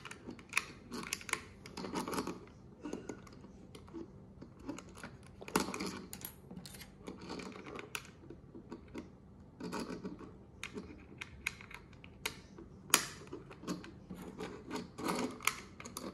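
Hard plastic toy jet parts being handled and pressed together: irregular clicks, taps and scrapes of plastic as pieces are fitted back in, with a couple of sharper clicks.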